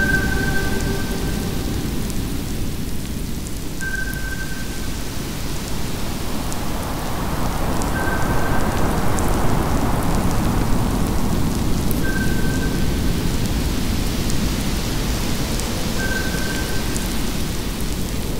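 Electronic ambient sound design: a dense rumbling wash of noise that swells in the middle, with a short high tone sounding every four seconds and faint scattered crackles.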